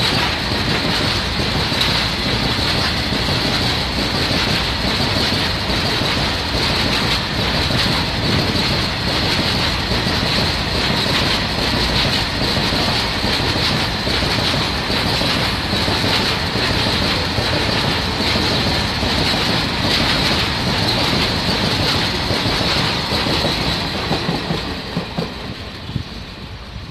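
Freight train of covered hopper wagons rolling past close by, the wheels clattering steadily over the rails with a high-pitched whine above the clatter. The noise fades over the last few seconds as the end of the train goes by.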